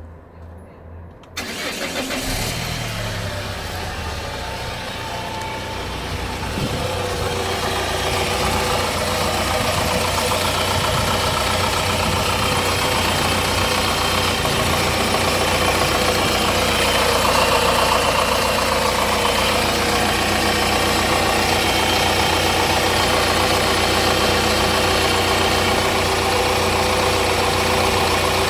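Opel Vectra C's 1.9 CDTI four-cylinder turbodiesel starting about a second in, then idling steadily, growing louder from about seven seconds with several steady tones over the engine hum. This running sound carries the noise the owner calls annoying.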